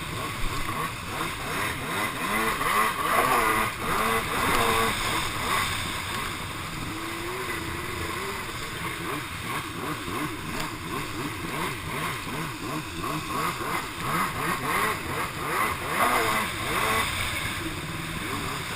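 Two-stroke stand-up jet ski engine running, its pitch rising and falling again and again as the throttle is worked.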